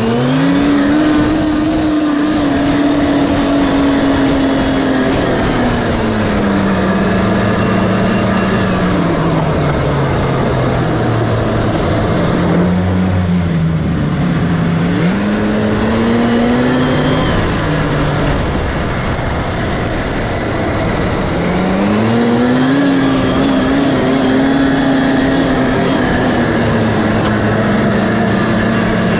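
1979 Scorpion Whip TKX snowmobile's two-stroke Cuyuna engine running under way. It revs up at the start, eases off to a lower pitch through the middle, and revs up again about two-thirds of the way in, holding the higher pitch to the end.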